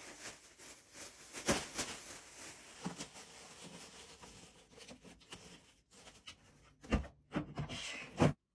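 Household items being handled and set down during restocking: rustling and rubbing with a few sharp knocks, the loudest near the end, then an abrupt cut.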